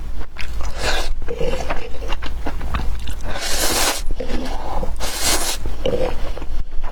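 Close-miked eating sounds: biting and chewing with wet clicks, and three longer hissing bursts about one, three and a half and five seconds in, over a steady low hum.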